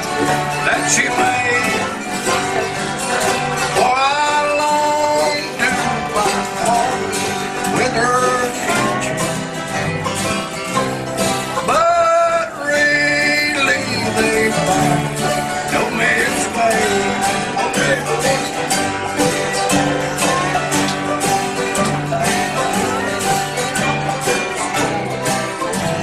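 Live bluegrass band of acoustic guitars and mandolin picking a steady rhythm over a walking bass line. A man sings lead over it in phrases.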